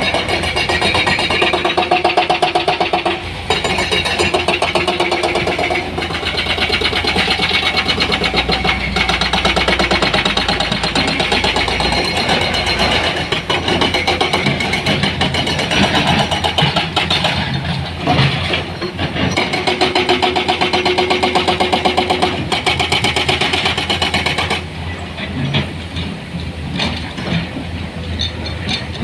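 Dump truck engine running with a rapid, even pulse. It becomes quieter near the end.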